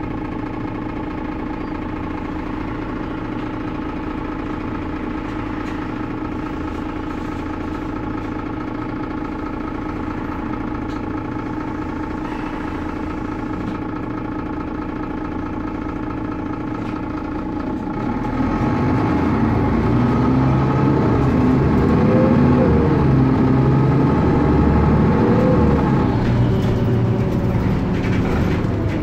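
Mercedes-Benz Citaro O530G articulated city bus running with a steady engine hum. About eighteen seconds in, the engine speeds up and gets louder, its pitch rising and falling for several seconds before easing slightly near the end.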